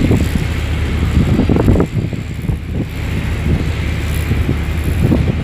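Strong wind buffeting the microphone: a loud low rumble that rises and falls in irregular gusts.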